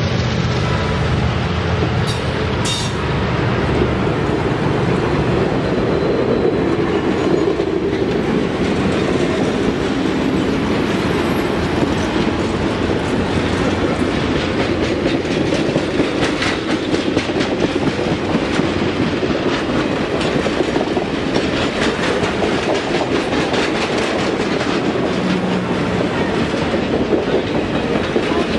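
Passenger cars of an excursion train rolling past at speed: a steady rumble of wheels on rail with a running clickety-clack of wheels over the rail joints.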